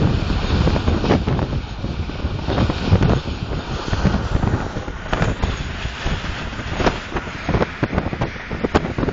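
Passenger train running at speed: a steady rumble with irregular knocks and clatter from the wheels and track, with heavy wind noise on the microphone.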